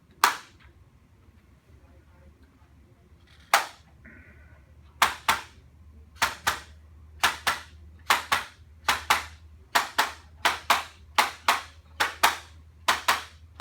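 Sharp clicks during a chiropractic neck correction: a single click just after the start, another about 3.5 seconds in, then a steady run of paired clicks, about one pair a second.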